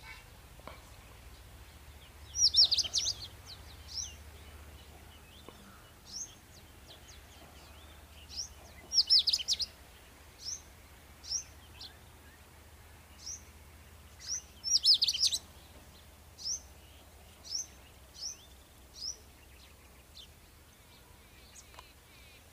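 Birds calling: three loud bursts of rapid high chirps, each about a second long and about six seconds apart, with single short high notes between them.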